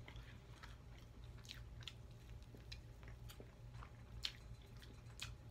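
Close-miked chewing of a fried buffalo chicken wing: faint, scattered wet clicks and small crunches from the mouth, a louder one about four seconds in, over a steady low hum.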